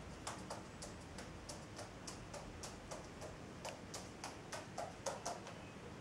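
Common wood pigeon walking on a laminate floor, its claws clicking about three times a second. The clicks are somewhat louder in the last two seconds.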